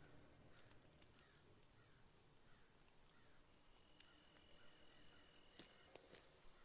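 Near silence: faint, repeated scratching of a pen drawing short strokes on paper, with a few soft clicks near the end.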